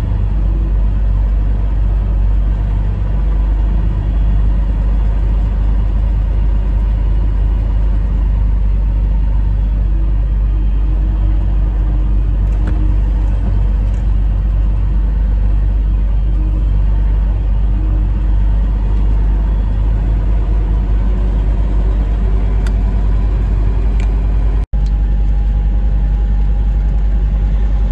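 Semi truck's diesel engine running with a steady, heavy low rumble as the truck moves slowly. The sound drops out for an instant near the end.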